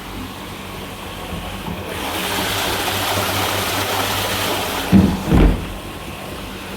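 MP05-type ice-making machine running with a steady hum. About two seconds in, a louder rushing noise rises and holds for about three seconds, then two heavy thumps come about half a second apart.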